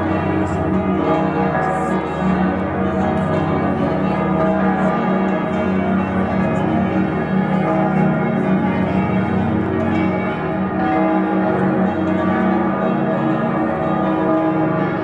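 Church bells from many churches across a city ringing together in a full peal, a dense, continuous wash of overlapping bell tones.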